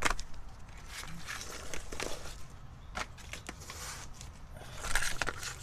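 Handling noise from the camera being moved and repositioned under the truck: scattered clicks and knocks with rustling, briefly louder near the end.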